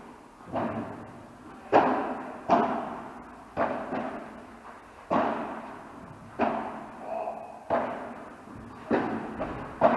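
Padel rally: the ball is hit back and forth with padel rackets and bounces off the court, giving sharp pops about once a second at uneven gaps, each with a ringing echo.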